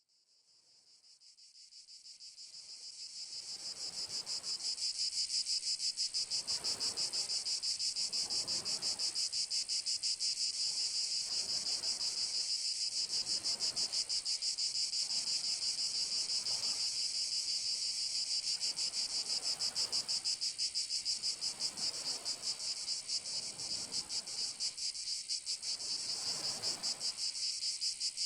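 Cicadas buzzing in a steady, high-pitched chorus with a fast pulsing trill, fading in from silence over the first few seconds.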